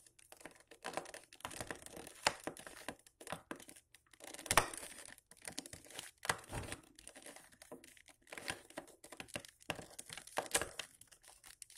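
Mirror cube being turned by hand: a quick, irregular run of plastic clicks and rattles as its layers are twisted, with a louder clack about four and a half seconds in and another near the end.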